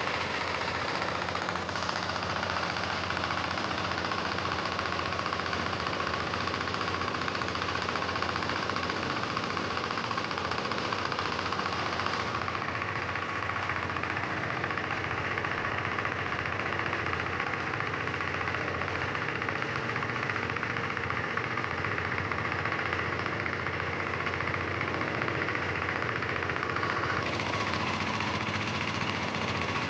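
Sveam 25 HP diesel engine running steadily, driving a 6-inch Niagara water pump.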